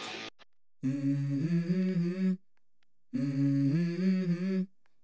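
Background music: a hummed vocal phrase that steps up in pitch partway through, heard twice, with short silent gaps between.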